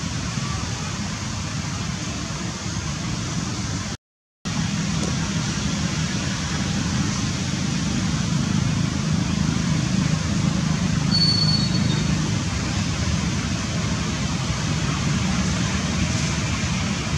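Steady outdoor background noise, a low rumble with hiss, like distant traffic or wind. It cuts out completely for a moment about four seconds in, and a brief high tone sounds about two-thirds of the way through.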